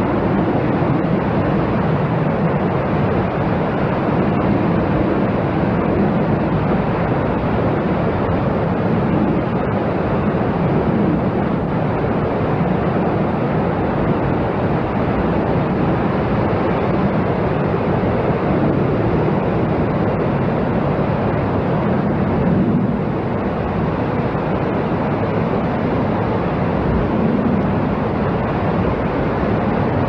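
Ocean surf washing in, a steady rushing noise that swells slightly now and then.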